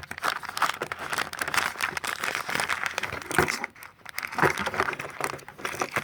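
Continuous crinkling and rustling with many small clicks and crackles, from the saw and its accessories being handled in their packaging.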